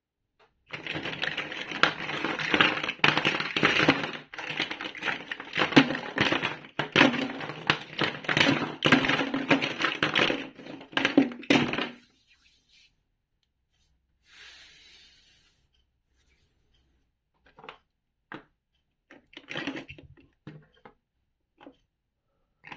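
Plastic building bricks being handled: a dense run of clicking, clattering and rustling for about twelve seconds, then a few separate clicks near the end.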